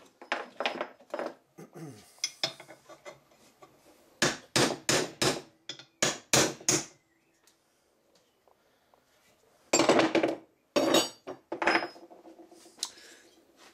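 Ash axe haft rapped end-down on a wooden workbench in quick groups of sharp knocks, tapping the forged axe head further onto the handle to seat it. A few longer scuffing noises come near the end.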